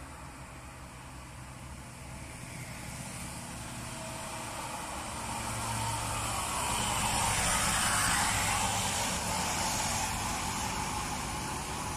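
Road traffic on a steep hill climb: vehicle engines running steadily, growing louder as a minibus passes close about two-thirds of the way through, with tyre noise, then easing off slightly.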